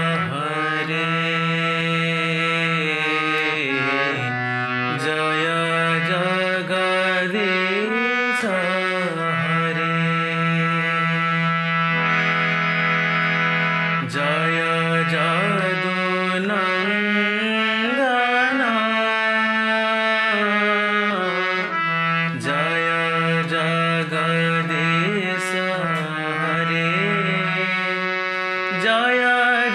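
Harmonium playing a quick devotional melody in E major over a steady low note held beneath it.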